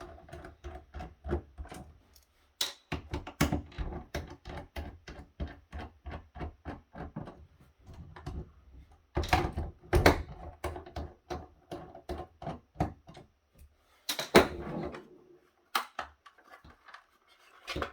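Screws being taken out of a plastic docking station's trim with a screwdriver: a long run of small quick clicks, several a second, with a few louder plastic knocks about halfway through and again later.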